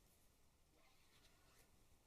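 Near silence, with a few faint soft ticks and rustles of a hand handling a paper print and a plastic mask strip.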